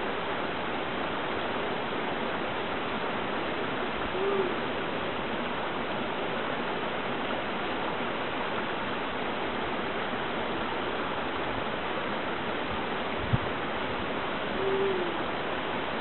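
Steady rush of falling water from a waterfall spilling down a cliff. A bird gives a short low hoot twice, about four seconds in and near the end, and there is one sharp click about thirteen seconds in.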